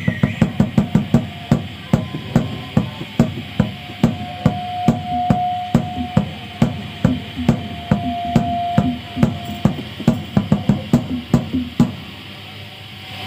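Drums struck in a quick, uneven rhythm of about four sharp hits a second, with a held high note sounding over them for several seconds in the middle. The drumming stops about a second before the end.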